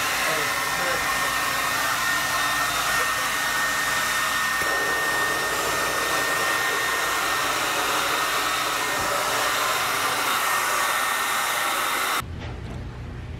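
Hair dryer blowing steadily, a rushing noise with a thin high whine, cutting off suddenly near the end.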